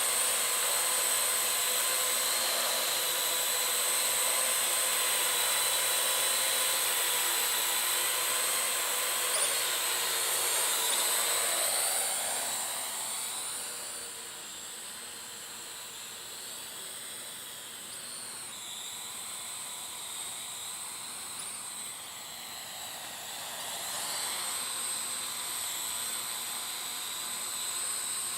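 Parrot AR.Drone 2.0 quadcopter's electric motors and propellers whining steadily in flight. About a dozen seconds in the sound drops in level with gliding pitch, then grows louder again near the end.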